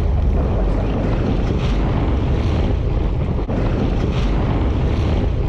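Steady wind rushing over the microphone, with ocean waves washing against the side of a boat.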